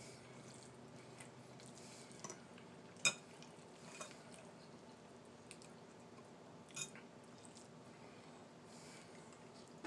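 A fork clicking against a bowl a few times, sharpest about three seconds in and again near seven seconds, with quiet chewing in between.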